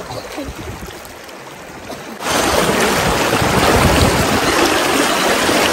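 Fast-flowing water rushing and splashing around a camera held at the water's surface: muffled at first, then a sudden, steady louder rush about two seconds in.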